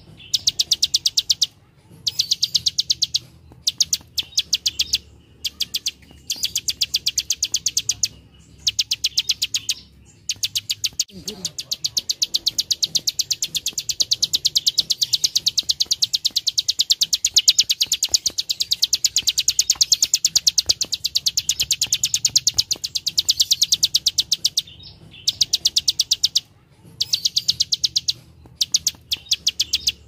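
Plain prinia (prenjak sawah) giving its rapid 'klik klik' clicking song, fast high clicks in runs of one to a few seconds with short breaks, and one long unbroken run of about fourteen seconds in the middle.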